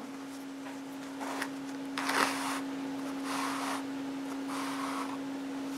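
Hands handling a stuffed crocheted acrylic-yarn toy while a tapestry needle is pushed through it, making four soft rustles with the second the loudest. A steady humming tone runs underneath.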